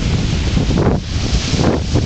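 Wind buffeting the microphone with a steady low rumble, over the hiss of small waves breaking and washing up onto a sandy beach.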